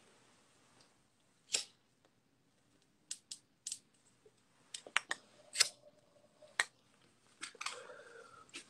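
A dozen or so short, sharp clicks and taps close to the microphone at irregular intervals. Near the end comes a soft breathy rush as smoke is blown out.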